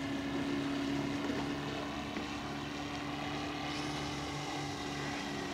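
Roto 85 four-stroke boxer engine of a 1/3-scale Fokker Dr.1 model triplane running steadily in flight, with an even propeller drone at a constant pitch that grows slightly fainter after about two seconds.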